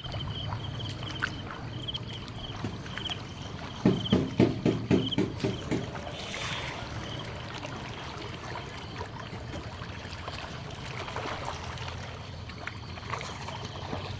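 Water splashing in a fish pond, with a quick flurry of splashes about four seconds in over a steady low rumble.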